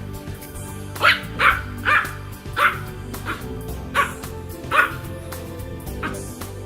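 A puppy giving six short, high-pitched barks over steady background music.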